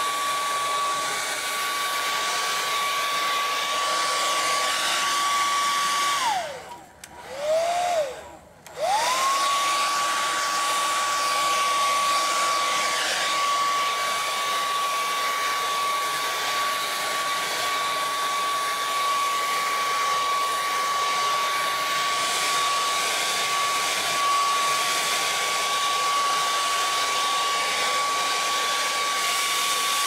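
Hand-held hair dryer running with a steady high whine and rush of air. About six seconds in it winds down, spins partway up and down again, then spins back up to full speed about nine seconds in and runs on steadily.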